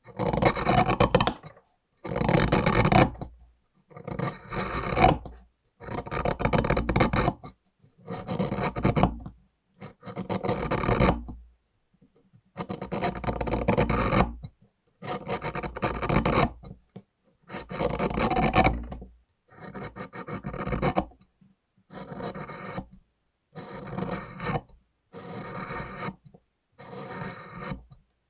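Plaster being ground down by hand in repeated rasping strokes, each lasting about a second with short gaps between, roughly one every two seconds. The strokes grow quieter toward the end.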